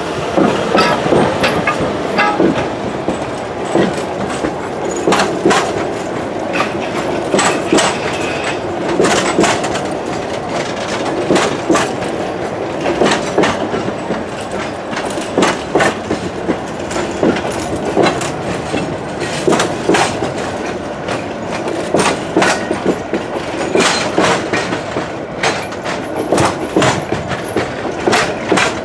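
Metre-gauge train of old wooden carriages behind a diesel locomotive rolling slowly past, wheels clicking and clunking over the rail joints and points every second or so, often in pairs as each bogie crosses.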